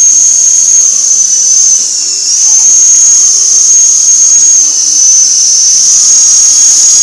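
Helicopter's turbine engine whine: a loud, steady high-pitched whine that wavers slightly in pitch.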